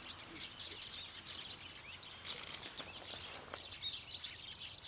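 Small birds chirping: many short, high calls overlapping, with a louder run of calls about four seconds in.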